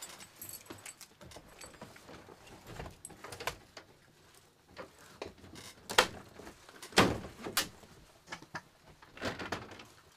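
Knocks, clicks and scrapes of a plastic airliner ceiling panel being pried and pushed at with a bunch of keys, with the sharpest knocks about six and seven seconds in.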